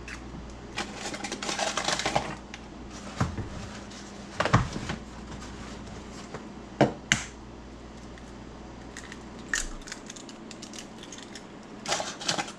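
Eggs being cracked for a corn muffin batter: a crinkly rustle about a second in, then several sharp taps and knocks, with a few lighter clicks near the end.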